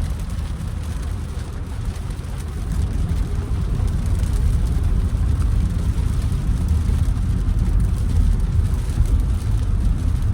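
Jeep Grand Cherokee's Hemi V8 and road noise heard while driving: a steady low rumble that grows louder about three to four seconds in as the Jeep picks up pace.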